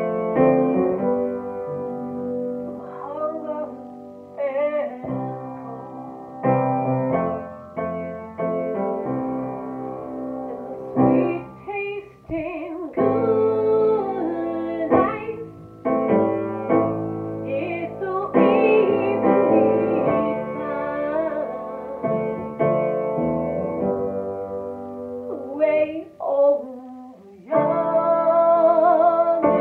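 A woman singing a slow song while accompanying herself on an upright piano.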